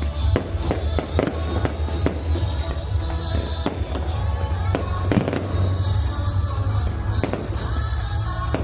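Fireworks going off repeatedly, sharp bangs and crackles one after another, over loud show music with a heavy bass.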